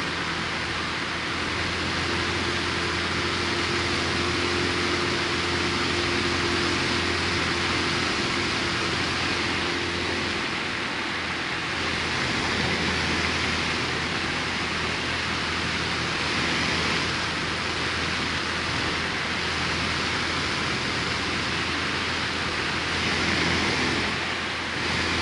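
A light aircraft's engine and propeller running steadily in flight, mixed with heavy rushing airflow, heard from inside the cockpit. The engine's hum drops back about eleven seconds in.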